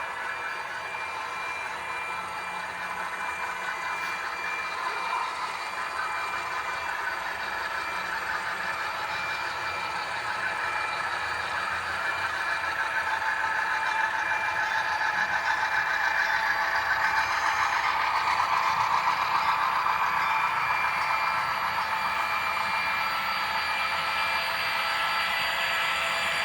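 HO scale model freight train led by a consist of model diesel locomotives running along the layout: a steady whine with several fixed tones, growing louder from about halfway through as the train comes close, then easing a little near the end.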